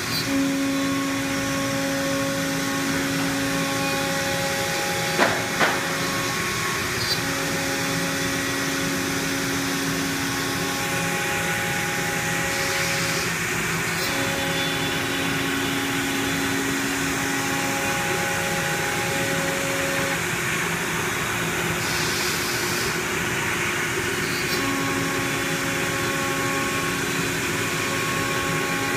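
Gerber Sabre CNC router cutting a sheet of board, its spindle and dust extraction giving a steady whir. A pitched hum comes and goes every few seconds as the machine works, and two sharp knocks sound about five seconds in.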